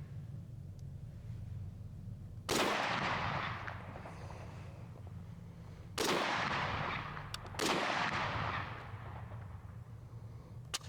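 Three rifle shots from a Chinese SKS firing 7.62×39 rounds, the second about three and a half seconds after the first and the third a second and a half later, each trailing off in a long echo. A steady low hum runs underneath.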